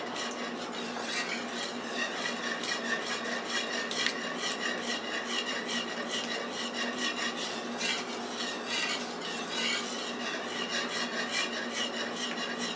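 Wire whisk stirring a thin milk-and-flour sauce in a metal skillet: a steady run of quick scraping strokes against the pan. This is the roux base being thinned with milk while it still has lumps.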